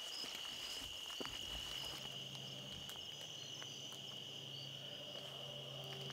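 Night chorus of crickets and other insects, a steady shrill trill with pulsed chirps above it. Scattered snaps and rustles of someone pushing through brush, and a low steady hum that starts about a second and a half in.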